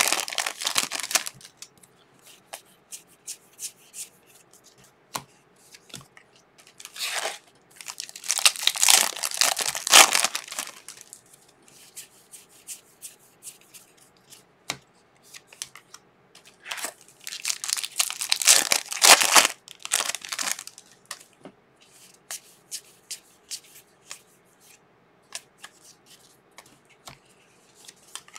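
Foil trading-card pack wrappers being torn open and crinkled in several loud bursts, with soft ticks of the cards being handled in between.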